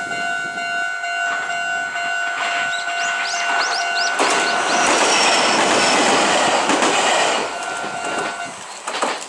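Warning bell of a Meitetsu Takehana Line level crossing ringing while a train passes over the crossing. The train's rumble and wheel clatter build from about four seconds in and are loudest for about three seconds. The bell stops shortly before the end, and a single sharp knock follows.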